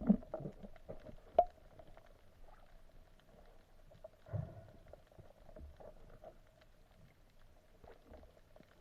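Muffled underwater sound picked up through a spearfisher's camera housing: a few sharp clicks and knocks in the first second and a half, a dull thump about four seconds in, over a faint steady hum.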